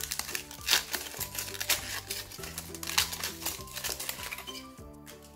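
Crinkly foil wrapper being torn and peeled off a plastic surprise egg, a run of quick crackles, over background music with a steady bass line.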